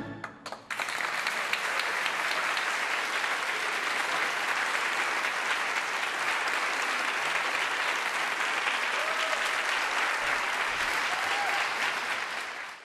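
The last chord of a tamburica orchestra dies away, and just under a second later an audience breaks into steady, dense applause. The applause cuts off suddenly at the end.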